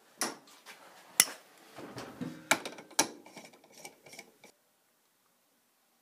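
Spring and plastic parts being dropped into and fitted down the centre of a washing machine agitator: a few sharp clicks and knocks with light rattling, stopping about four and a half seconds in.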